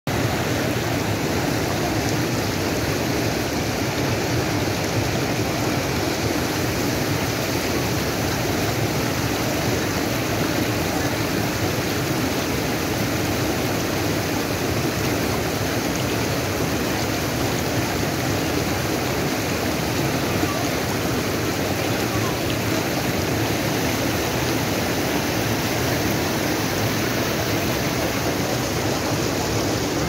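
Shallow mountain stream rushing over rocks and small rapids, a steady, unbroken rush of water.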